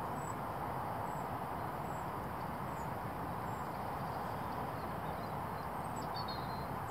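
Steady outdoor background noise: an even hiss with no distinct events, broken only by a few faint, short high chirps.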